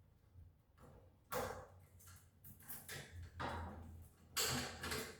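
Handling noise from hands-on electrical work: a few short scraping and rustling sounds. The loudest come about a second in and near the end.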